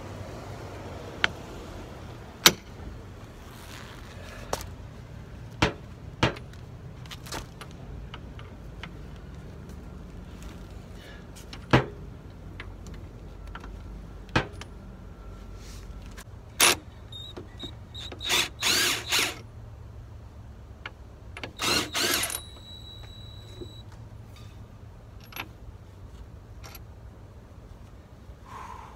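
A wrench working the front brake caliper's mounting bolts: scattered sharp metal clicks and knocks, and twice, a little past the middle, a run of rapid clicking lasting about a second.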